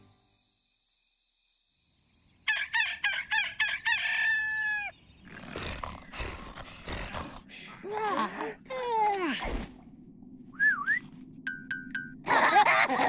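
Near silence for about two seconds, then a rooster crowing in a stuttering run of short notes that ends on a long falling note, the cartoon's wake-up call for morning. After it come a waking character's noises with falling, yawn-like groans, then a short rising chirp and a few brief high tones.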